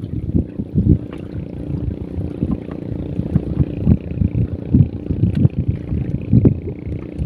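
Wind buffeting the microphone in irregular low thumps, over a steady low hum.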